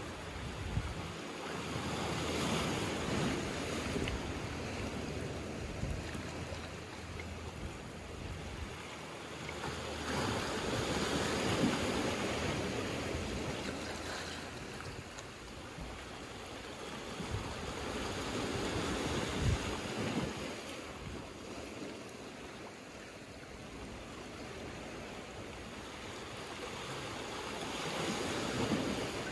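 Small sea waves washing in over rocks and a pebble shore, the surf swelling and easing about four times, with some wind buffeting the microphone.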